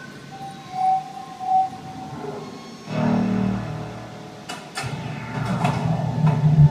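Electronic soundtrack music and sound effects of a building projection show. A held synth tone comes first, then a low swell, then sharp clicking hits over a rising low rumble near the end.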